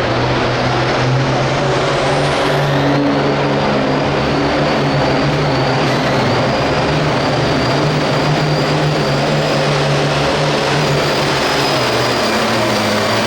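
Hot Farm pulling tractor's turbocharged diesel engine running hard and steady for the whole stretch, with a high whine over the engine note from about three seconds in.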